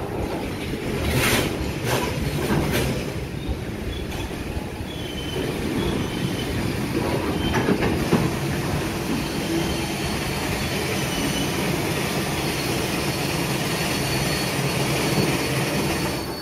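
Freight train of covered hopper wagons rolling past close by: a steady rumble and clatter of steel wheels on the rails, with a few sharp clanks in the first few seconds. A faint high wheel squeal runs through the second half.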